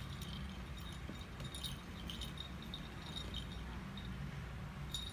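A small bell on a cat's collar jingling in short, irregular bursts as the cat moves and paws during play, over a low steady background rumble; the jingling stops about four seconds in.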